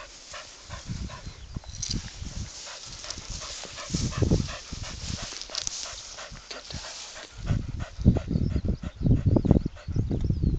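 Brittany panting rapidly, in quick short breaths. Gusts of low rumbling wind buffet the microphone about four seconds in and again through the last few seconds.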